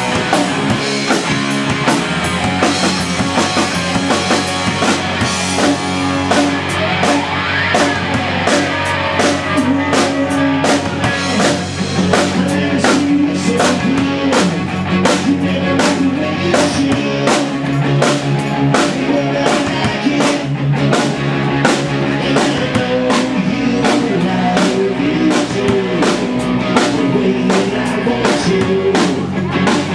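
Live rock band playing loud, with drum kit, electric guitar and electric bass over a steady driving beat.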